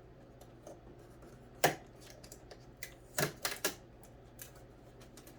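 Packing tape being pulled off a new sewing machine and its packaging: short, sharp crackling clicks, a loud one about one and a half seconds in and three quick ones close together a little past halfway.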